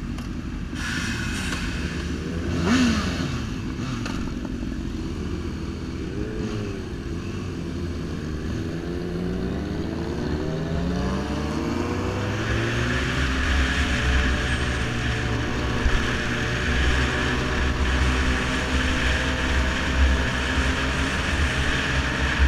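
Sport motorcycle engine: a short rev blip while stopped, then pulling away and accelerating with its pitch climbing, and settling into a steady run with wind noise rushing over the microphone from about halfway through.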